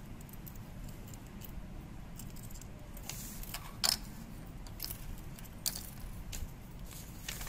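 Metal split ring and chain of a handmade keychain clinking as it is handled and set down on a wooden table: a few short clinks and taps, the sharpest about four seconds in.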